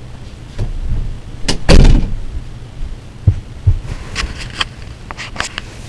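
A bedroom door, footsteps and a heavy thump about two seconds in, then a run of close clicks and knocks as hands grab the camera near the end.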